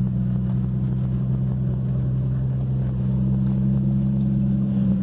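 Steady low drone of a vehicle driving, heard from inside the cab: an even engine and road hum made of two steady low tones over a low rumble.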